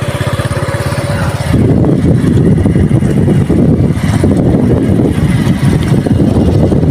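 Motorcycle engine running as the bike rides along a dirt track. It gets louder and rougher about a second and a half in.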